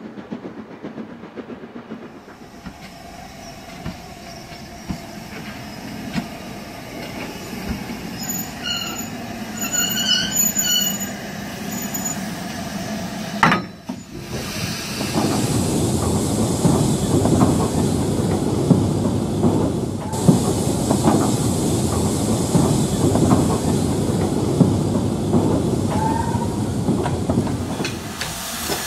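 Model steam locomotive hauling a train of loaded coal wagons: a low steady rumble of wheels on the track, with a few brief high squeals about ten seconds in. Past the midpoint the locomotive is close by and much louder, a busy run of rapid irregular beats.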